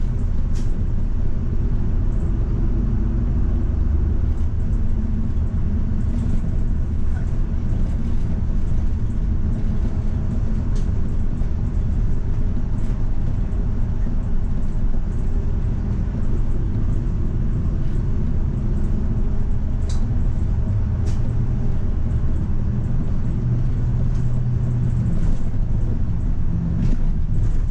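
Diesel route bus under way, heard from the front of the cabin: a steady low engine rumble with road noise, and scattered faint ticks or rattles throughout.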